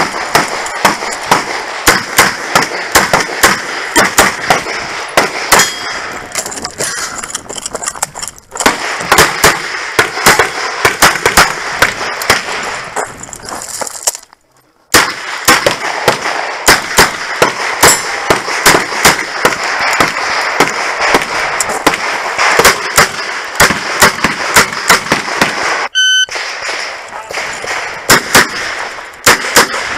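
Revolver shots fired in quick strings, roughly two a second, with short pauses between strings.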